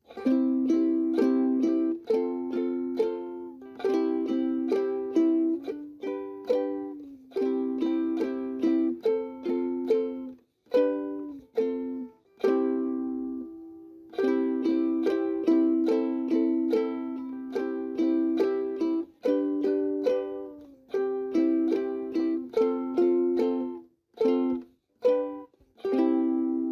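Background music: a steady rhythm of sharply struck chords that die away, broken by a few short pauses.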